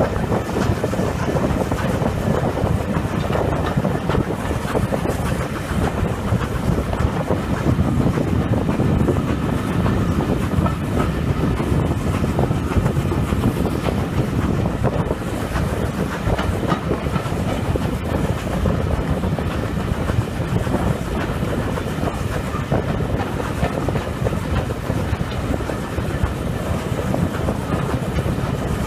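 Railway coaches running at speed through a tunnel behind GWR Small Prairie tank engine 5542, heard from on board: a steady rumble and clatter of wheels on the rails.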